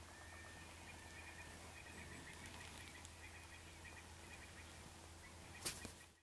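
Faint outdoor ambience: a steady low hum with many short, high chirps repeating in the background, and a single sharp click near the end.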